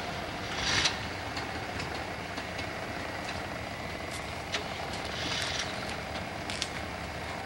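Willys jeep engine running at low, steady revs as the jeep crawls up a steep dirt ledge, with a few faint ticks and two short rushes of hiss, the louder one about a second in and another around five seconds.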